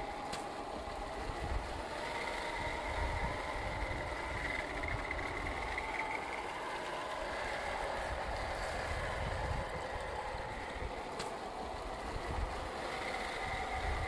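Small electric motor and gear drivetrain of a 1/10-scale RC crawler whining steadily as it drives at low speed over wet dirt, with a light low rumble underneath.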